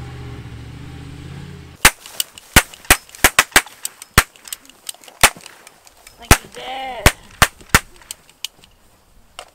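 A pickup truck's engine runs for about two seconds and is cut off by a string of over a dozen gunshots, irregularly spaced and sometimes in quick pairs, easing off near the end. About six and a half seconds in, a short wavering wail rises and falls between the shots.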